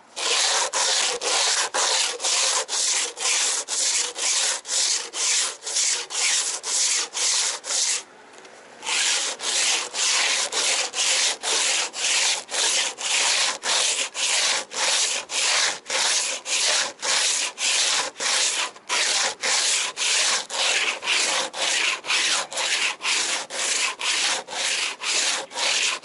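Cloth sandpaper rubbed back and forth by hand over the hard cured epoxy of an FRP boat hull, in steady strokes at about two a second. It pauses for about a second roughly a third of the way in.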